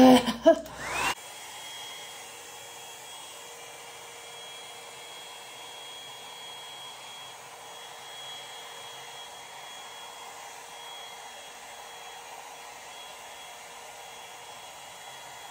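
Revlon One-Step hair dryer and volumizer brush running, blowing hot air through a section of damp hair: a steady whirring hiss with a faint thin high whine. It starts abruptly about a second in.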